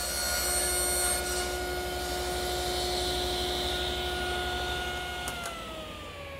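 Table saw ripping a large sheet of plywood: the steady hum of the motor and blade with the hiss of the cut on top. About five seconds in there is a click, and the hum falls steadily in pitch as the saw is switched off and the blade coasts down.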